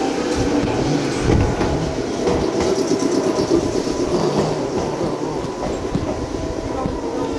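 Red Meitetsu electric commuter train moving along the platform: steady running noise with a hum from the drive and wheels knocking over the rail joints.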